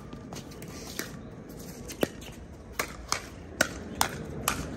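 Pickleball paddles striking a hard plastic pickleball in a fast rally at the net: about seven sharp pops at uneven spacing, several less than half a second apart.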